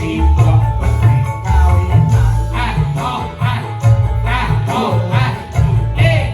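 Live band music with a heavy, pulsing bass line and tambourine jingles. A wavering lead melody comes in about two and a half seconds in.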